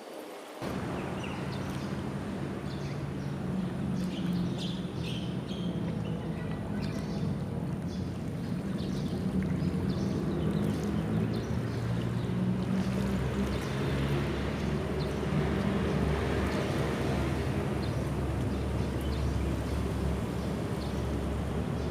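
A motor engine's low, steady drone, coming in suddenly just after the start and growing louder about a third of the way through, then holding.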